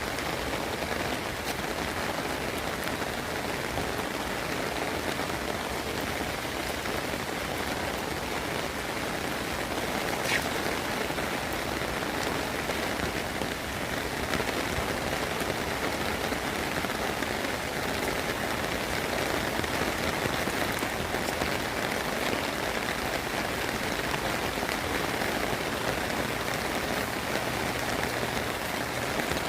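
Steady rain falling, an even wash of sound, with a single faint tick about ten seconds in.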